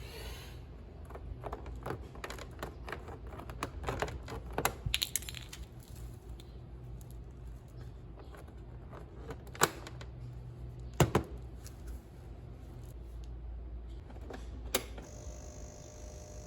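Scattered clicks and light metallic clinks of hand tools and parts being handled during work on a scooter, with a quick run of clinks about four to five seconds in and two louder knocks about ten and eleven seconds in, over a steady low hum.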